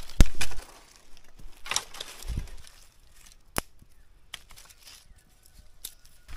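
Dry leaf litter rustling and crunching under hands, with a loud sharp click about a quarter second in and a single sharp click about three and a half seconds in.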